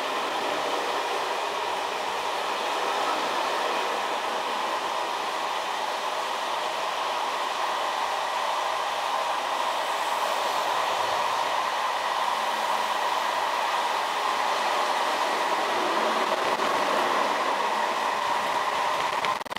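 Steady running noise of a moving electric passenger train, heard from inside its driving cab, with no clear wheel-joint clicks.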